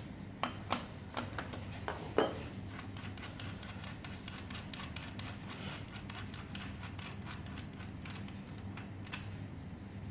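Hand tools and scooter parts being handled: a few sharp clicks and knocks in the first two seconds, the loudest about two seconds in, then a run of faint quick ticks, over a steady low hum.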